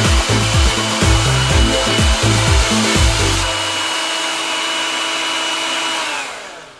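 Handheld hair dryer running steadily, its air blowing through the hose into a soft bonnet hood, with background music carrying a heavy beat over the first half. The dryer noise fades away near the end.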